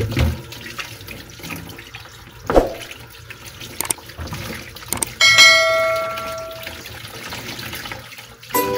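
Tap water running and splashing into a plastic basin as a raw whole chicken is rinsed and rubbed by hand, with a thump a little past two seconds in. About halfway, a subscribe-button sound effect plays: a few clicks, then a bright bell ding that rings out for about a second and a half. Music starts near the end.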